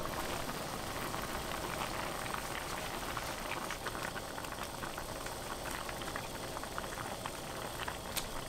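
Pot of mussel soup (홍합탕) at a rolling boil: steady bubbling with many small pops and crackles of foam around the mussel shells.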